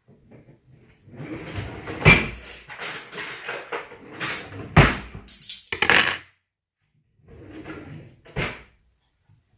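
Rummaging in a kitchen drawer for utensils, with clattering and four sharp knocks spread through it.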